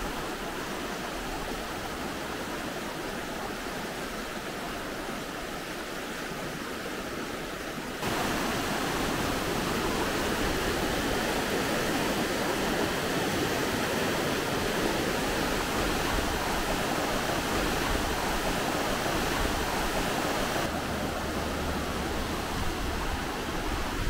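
Fast glacial river rushing over stones, a steady full-range roar of water. It gets suddenly louder about eight seconds in and a little quieter again near the end.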